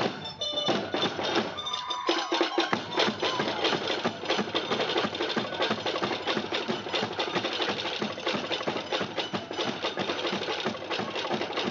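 Tahitian drum ensemble led by tō'ere wooden slit drums, beating the fast, even rhythm of an ʻōteʻa dance.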